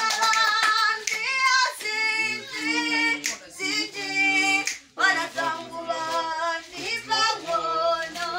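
A group of women and children singing together, with hand clapping; the singing breaks off briefly about five seconds in, then picks up again.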